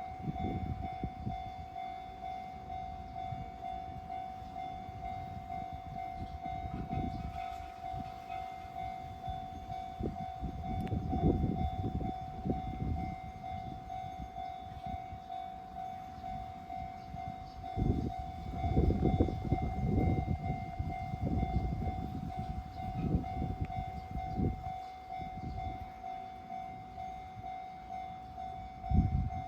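Japanese level-crossing warning bell ringing steadily, a repeating electronic ding on one pitch. Under it a train passes through the crossing, a low rumble and clatter of wheels that swells and fades several times and is loudest about two-thirds of the way through.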